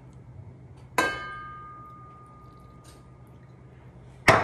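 A glass olive-oil bottle clinks against a stainless steel mixing bowl about a second in, and the bowl rings on for a couple of seconds. Near the end, a louder, duller knock as the bottle is set down on the countertop.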